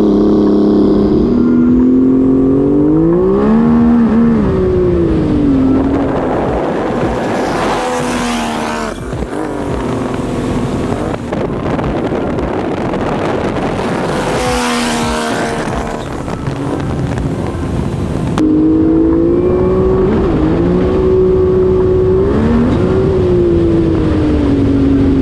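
Turbocharged three-cylinder Sea-Doo RXP-X 260 jet ski engine running hard, its pitch climbing and falling several times as the throttle is worked. For roughly the middle half the engine is buried under a loud rush of wind and spray.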